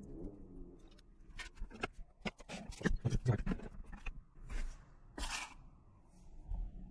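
A run of sharp clicks and light rattles from small hard objects being handled, followed by two short hissing scrapes a little apart.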